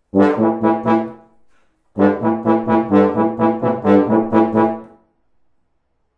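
Tuba and trombone playing together in short, detached notes: a brief phrase at the start, then a longer run of quick notes from about two seconds in that breaks off about five seconds in.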